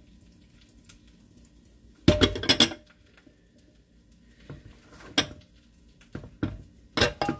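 Kitchenware clattering and clinking: a burst of rattling clatter about two seconds in, then several separate knocks and clinks through the rest.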